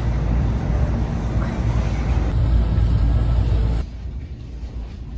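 A steady, loud low rumble that cuts off abruptly about four seconds in, leaving a much quieter background.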